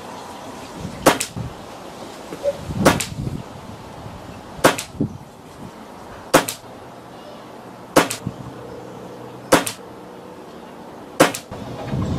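Reximex Regime .177 PCP air rifle fitted with a Lane regulator, firing Snowpeak round pellets: seven sharp shots about 1.7 seconds apart, with lighter clicks between some shots.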